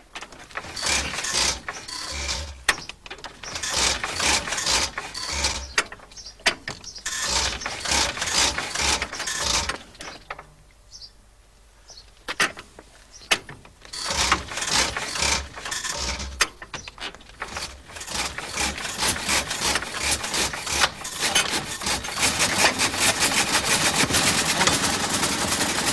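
1902 Wolseley engine being cranked by hand with the starting handle on half compression, giving irregular knocks and bursts of firing with a short lull about ten seconds in. From about twenty seconds it catches and runs with a fast, even firing beat.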